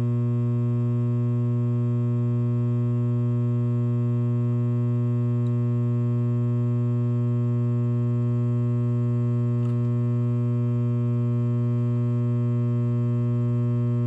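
Coleman DGAA056BDTA furnace humming steadily as it tries to start. It is a furnace with a "combustion air switch failed to close" fault (three-flash error code).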